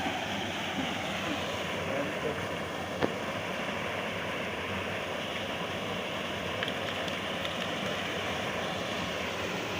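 Small river's water rushing steadily, with one sharp click about three seconds in.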